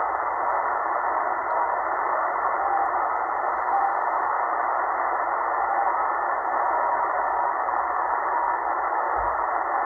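Shortwave receiver in upper sideband on 6250 kHz putting out a steady rushing noise with faint tones in it, cut off sharply above about 2 kHz by the SSB filter. The signal is typical of a jammer, as the listener suspects.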